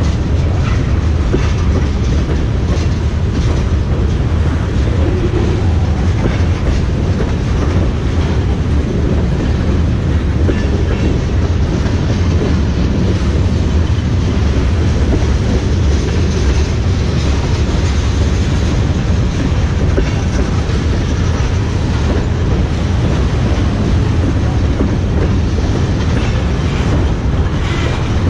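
Freight train of tank cars rolling past: a steady heavy rumble, with the clack of wheels over the rail joints.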